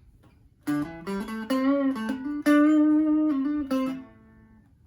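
FireFly FFTL Telecaster-style electric guitar, amplified and played on its Alnico 5 neck pickup: a short lead phrase of picked single notes with bends and vibrato, ending on a long held note that stops about four seconds in. Its tone is not as muddy as some, with a little brightness.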